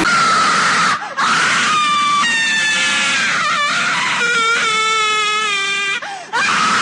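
Fan-made emergency alert siren sound: wailing, wavering tones over loud static, gliding and sagging slightly in pitch. It breaks off briefly about a second in and again near the end.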